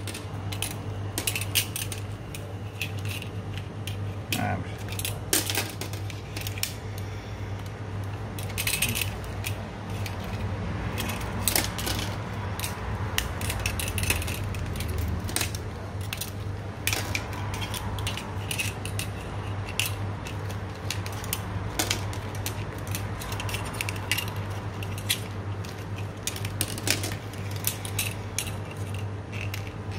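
Irregular small metallic clicks and light scrapes of a brushcutter's coiled recoil-starter spring and a steel binder clip being worked into the plastic starter pulley by hand. A steady low hum runs underneath.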